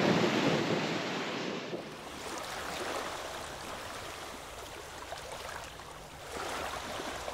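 Waves washing on a beach, with wind on the microphone; about two seconds in it drops to a quieter, gentle wash of small waves at the shoreline.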